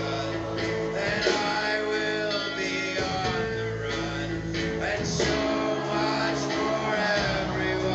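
Live band music: a folk-rock song played on guitars, with singing.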